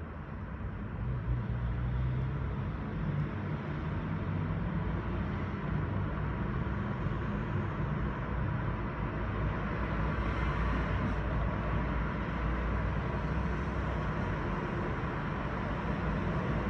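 Urban road traffic: cars driving past, a steady noisy roar that swells about a second in and again near the middle.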